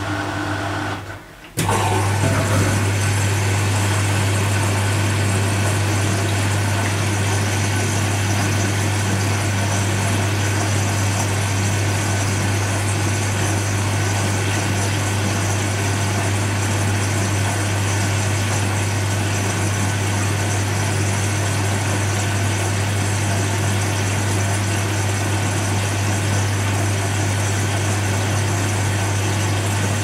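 Beko WMY 71483 LMB2 washing machine running in its rinse program: a steady low hum with a broad rushing noise over it. It cuts in sharply after a brief dip about a second and a half in, then holds steady.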